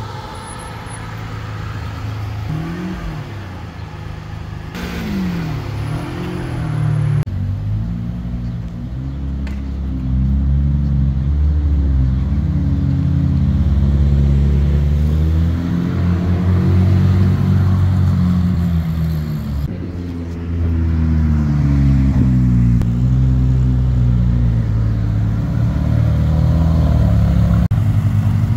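Ferrari engines revving and accelerating through several short cuts, including a 458 Speciale's naturally aspirated V8. The revs rise and fall again and again, growing louder and harder in the second half.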